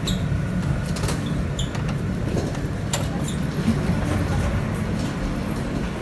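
A New York City subway train's steady low running rumble, heard from inside the cars, with a few sharp clicks and knocks.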